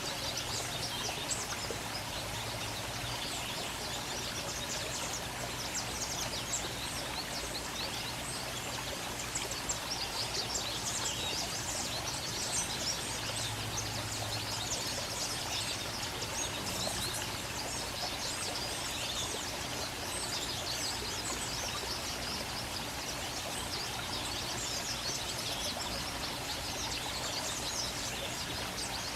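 Birds chirping and twittering in quick, overlapping notes over a steady background hiss.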